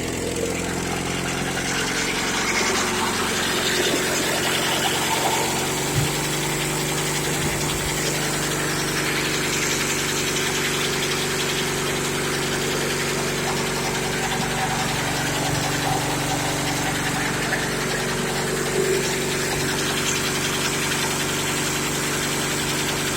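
The 1941 Caterpillar D2's gasoline pony motor running steadily, turning over the diesel, which does not catch. There is one sharp knock about six seconds in, after which the running tone holds steady.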